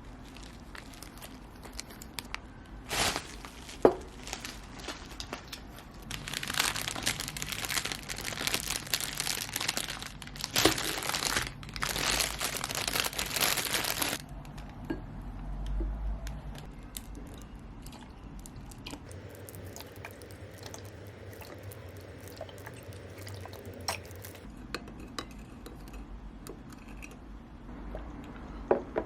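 Packaging being crinkled and torn open in several loud bursts, with a couple of sharp knocks and quieter handling noises between them.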